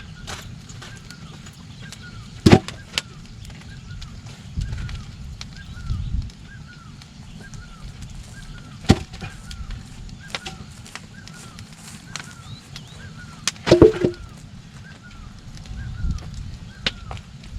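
Scattered sharp knocks, some in quick pairs and a cluster a little after the middle, over a short high chirping call repeated about twice a second.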